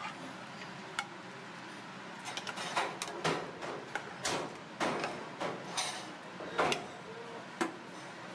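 A spatula knocking and scraping against the side of a stainless steel stockpot as pieces of monkfish are stirred in water, giving a string of irregular clinks and knocks.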